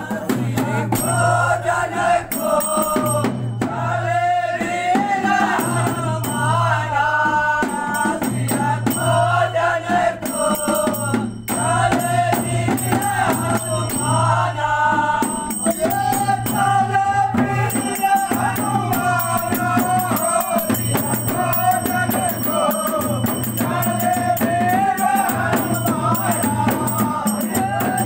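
A group of men singing a Phagua (Holi folk song) together, with dholak drum accompaniment and a steady high clicking percussion beat.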